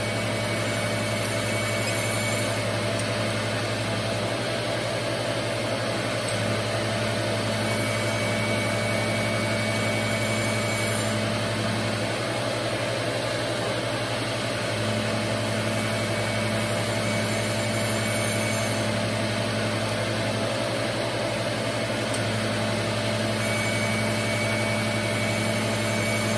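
A surface grinder runs with its wheel spinning steadily while a diamond dresser dresses the wheel face in fine passes, about a thousandth per pass. The low hum shifts in strength every few seconds as the table travels back and forth.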